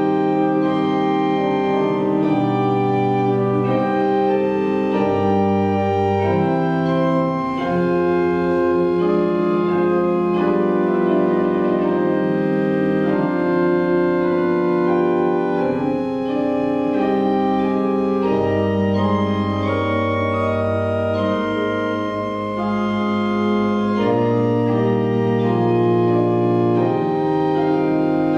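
Organ music: sustained chords over a slowly moving bass line, a steady, continuous prelude.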